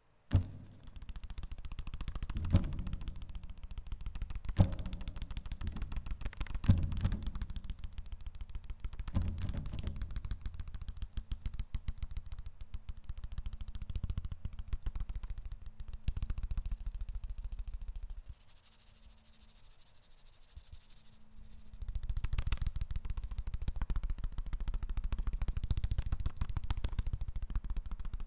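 Paper percussion: a dense, fast rattle of handled and struck paper with a heavy low thud underneath, punctuated by four strong hits about two seconds apart in the first seven seconds. The rattle drops to a faint hush for about three seconds past the middle, then comes back just as dense.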